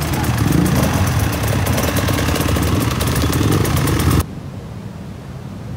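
Several dirt bike engines running close by at idle, with a dense, rapid crackle of firing. About four seconds in the sound cuts off abruptly and gives way to a much quieter steady hiss.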